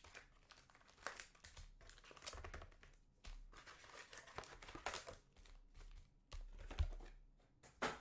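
Foil trading-card packs crinkling as they are handled and stacked, a run of irregular crackles.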